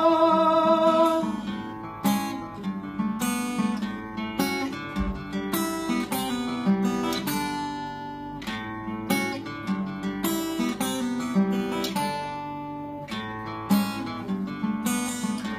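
Solo acoustic guitar played through an instrumental break in a song, with strummed chords and picked notes. A man's long sung note with vibrato ends about a second in.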